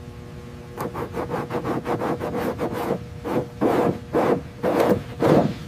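Rough scraping or rubbing strokes on a hard surface, starting about a second in. They begin as quick short strokes, about four a second, then slow into five longer, louder strokes about half a second apart, over a steady low drone.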